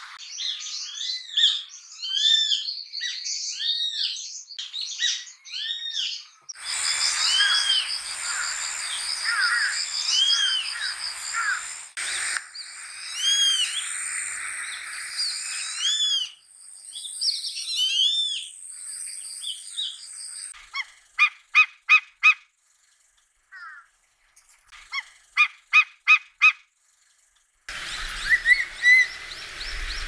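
A run of raptor calls. For most of it, grey-faced buzzards call over and over with a shrill, strident, arching note. About two-thirds of the way through, a Steller's sea eagle gives two short bursts of clipped barking notes, and near the end a crested serpent eagle begins calling.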